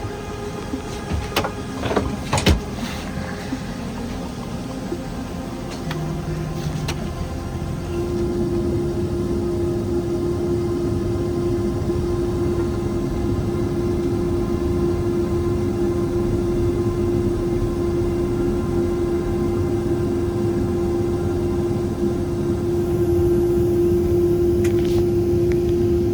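Airliner cabin noise: a steady rumble with a constant hum, a few knocks in the first seconds, growing louder near the end.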